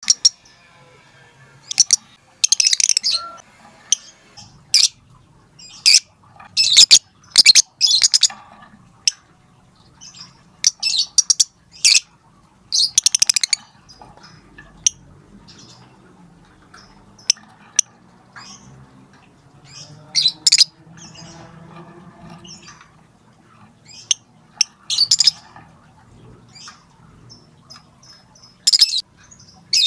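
Lovebird calling to a companion with short, sharp, high 'tik tik tik' calls at irregular intervals, broken by a few longer chattering runs.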